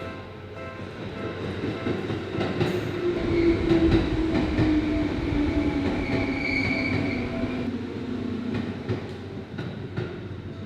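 Seibu 101-series electric train running in over the rails, its rumble building and a whine falling in pitch as it slows, with a brief high squeal midway. A level-crossing bell rings at a steady beat behind it.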